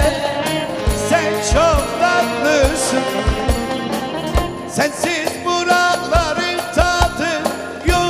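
Live Turkish halay folk music: a davul bass drum beats a steady rhythm under a wavering, ornamented melody line.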